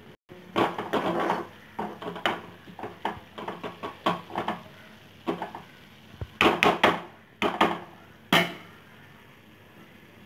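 Steel spoon stirring sliced green beans in a kadai, scraping and knocking against the pan in quick irregular strokes that stop about eight seconds in.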